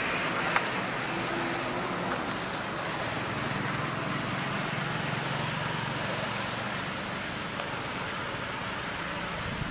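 Road traffic ambience: a steady wash of noise with a motor vehicle's engine hum passing through the middle, and a single short click about half a second in.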